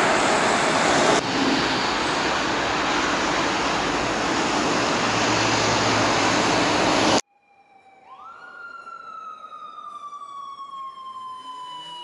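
Loud, steady rushing traffic noise beside a road, cut off abruptly about seven seconds in. A police siren then winds up quickly and slides slowly down in pitch.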